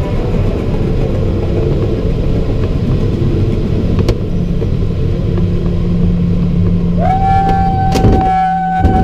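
Loud rumble of airflow and airframe in a glider's cockpit on final approach to a grass strip. About seven seconds in a steady high tone sounds for a couple of seconds, and a sharp knock comes just after, as the glider reaches the ground.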